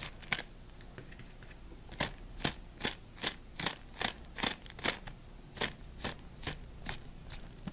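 Paintbrush dry-brushing grey highlight paint across a black plastic trash-bag wing, in quick short strokes about two or three a second after a brief pause near the start, the brush rasping on the crinkly plastic.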